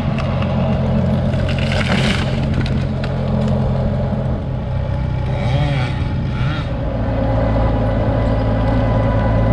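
A vehicle engine running steadily, its pitch shifting a little a few seconds in and again near the middle.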